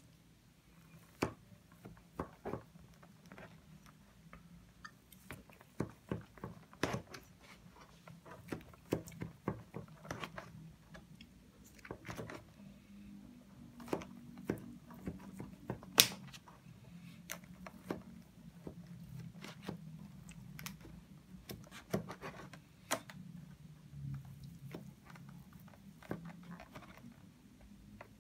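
A knife cutting slices from a ring-shaped cheese sponge cake sitting in a thin plastic tray: scattered sharp clicks and taps as the blade goes through the crust and knocks the plastic, the loudest about sixteen seconds in.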